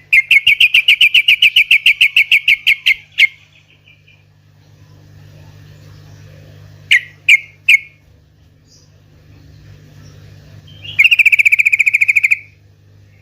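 Yellow-vented bulbul (trucukan) calling: a fast, even trill of about seven notes a second for about three seconds, three short notes around the middle, then a second trill near the end. A low steady hum runs underneath.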